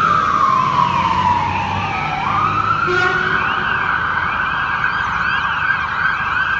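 Fire engine sirens. One slow wail falls over about two seconds, then rises again and holds high, while a second, faster up-and-down siren sounds above it over the low rumble of the appliances' engines.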